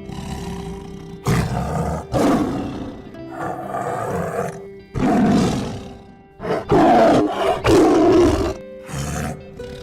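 A big cat roaring, a series of about seven loud, rough roars with short gaps, over background music with sustained tones.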